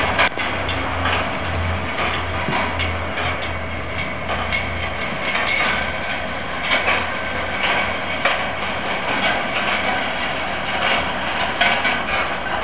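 Balls rolling and running down the copper-wire tracks of a motor-driven rolling ball sculpture: a continuous metallic rattle thick with small clicks and ticks as balls roll along and strike the wires. A low hum sits underneath for the first five seconds or so.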